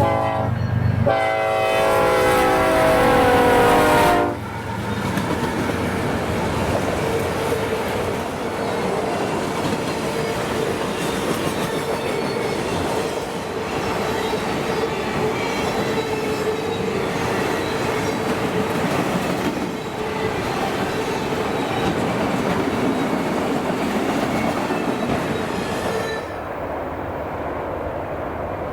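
Train horn sounding a loud chord, broken once about a second in and cut off after about four seconds. Then the train rolls past with a steady rumble and clickety-clack of wheels over rail joints, with a faint steady squeal from the wheels. The passing sound turns quieter and duller near the end.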